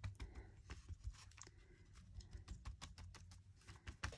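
Faint, irregular tapping as an alcohol-ink applicator is dabbed onto sticky tape laid over paper, the taps coming thicker near the end.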